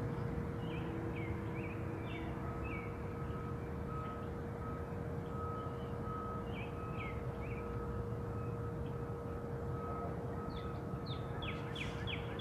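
Songbirds chirping on and off over a steady low background rumble. Near the end a bird gives a rapid run of short chirps, about three a second.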